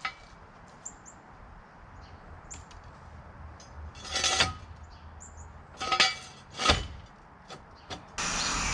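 Metal clanking and rattling: a few separate clanks, then a louder stretch of continuous rattling near the end, from handling an engine being hoisted out of a car.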